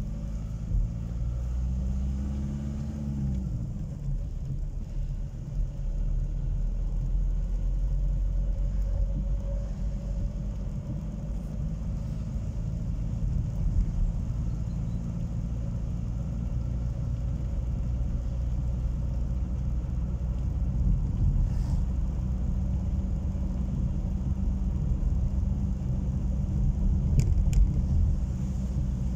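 Car engine and road noise heard from inside the cabin while driving, a steady low rumble. The engine pitch rises briefly about two seconds in and drops back a second later.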